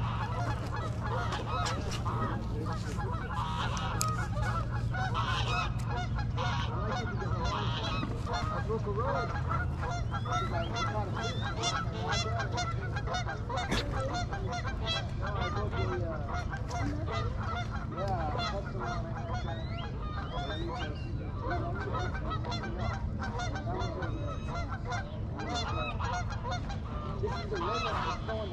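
A flock of geese honking: many overlapping calls, steady throughout, over a constant low hum.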